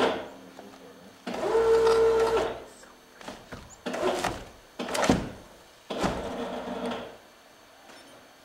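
Electric power tool motor whining at a steady pitch for about a second, rising to speed as it starts and then cutting off, followed by a few sharp knocks.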